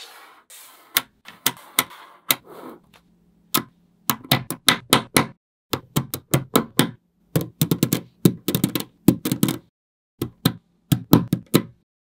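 Small magnetic balls clicking sharply as they snap onto each other, in quick irregular clusters of clicks. Over the first couple of seconds there is a softer continuous rattle of balls shifting against one another.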